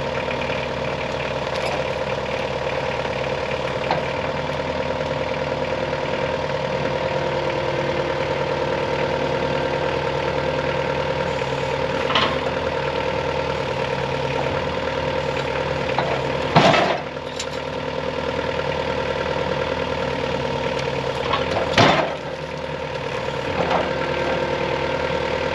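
Sawmill engine running steadily, with a few heavy knocks as the log is rolled over on the mill; the loudest comes about two-thirds of the way through.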